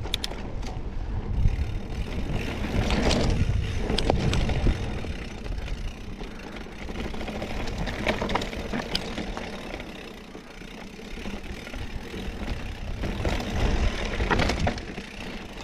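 Scott Spark RC mountain bike riding down a rough trail: wind buffeting the microphone with tyre noise and the bike rattling and knocking over the ground.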